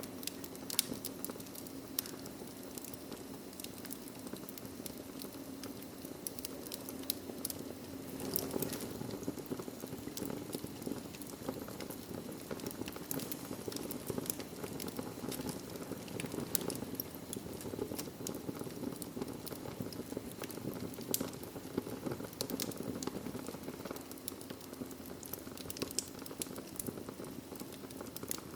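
Wood fire burning in a fireplace: a steady low rush of flame with frequent sharp crackles and pops from the burning logs.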